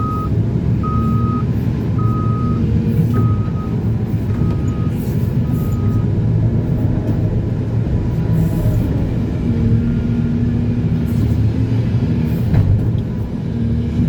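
Heavy diesel earth-moving machinery running steadily, with a vehicle's reversing alarm beeping on one high tone about six times, once every second or so, stopping about six seconds in.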